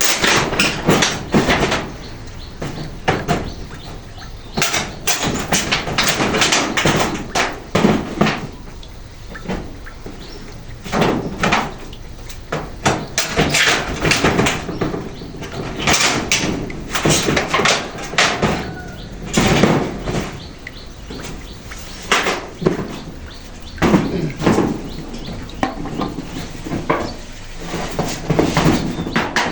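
Irregular knocks and bangs of roofing work on corrugated zinc sheets, metal sheets being handled and struck as they are fixed in place.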